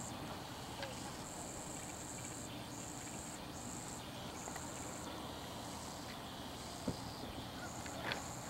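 Insects trilling high and steadily in repeated runs that stop and start every second or so. A couple of sharp knocks come near the end.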